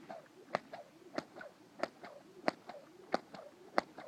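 A horse's hoofbeats as it works around on a lunge line: a sharp strike about every two-thirds of a second in an even rhythm, with quieter sounds between the strikes.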